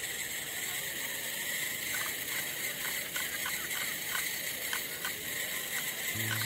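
The electric drive of a small wheeled camera robot running as it rolls across grass, a steady whirring hiss with scattered light clicks. A low steady hum comes in near the end.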